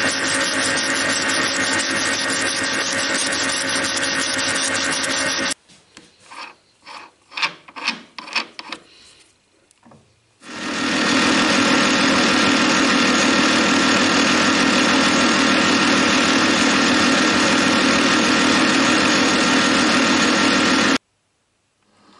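Metal lathe running with a hand wire brush scrubbing the threads of a spinning threaded rod, a steady loud rasping. It stops about five seconds in, followed by a few scattered knocks and clicks, then the lathe runs steadily again for about ten seconds and stops abruptly near the end.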